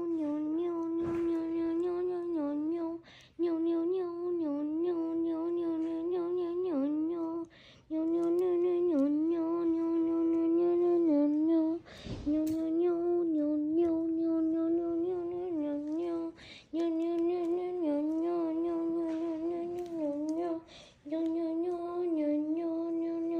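A voice humming one held, slightly wavering note, over and over in phrases of three to four seconds with short breaks between them, six times.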